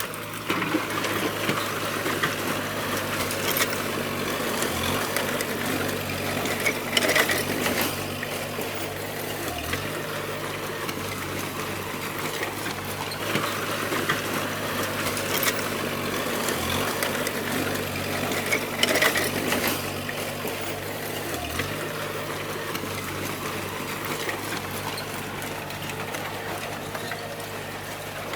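Bulldozer diesel engine running steadily under the metallic clatter and rattle of its tracks, with a sharper clank now and then. The engine note dips briefly every few seconds as the load changes.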